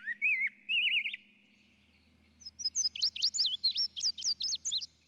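Small birds chirping: a run of short warbling chirps, a pause of about a second, then a faster series of higher, sharper chirps, about three a second.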